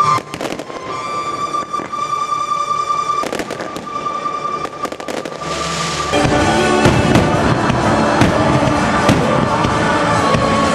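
Fireworks bursting over sustained music: a few separate bangs in the first half, then from about six seconds in a louder, dense barrage of rapid bangs.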